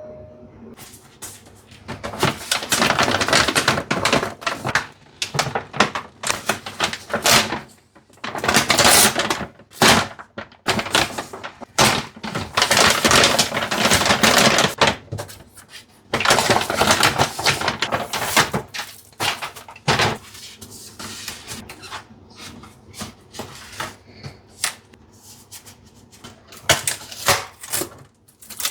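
Food delivery packaging being opened by hand: paper and plastic rustling and tearing in repeated bursts of a second or more, with many small clicks and knocks between them from tape and staples being worked loose.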